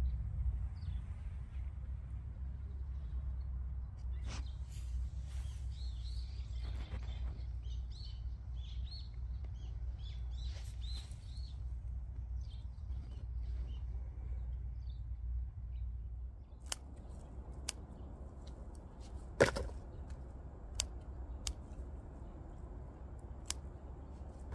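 Small birds chirping over a low steady rumble. Then, for the last third, about six sharp snips roughly a second apart, one much louder than the rest, as faded grape hyacinth flower stalks are cut off.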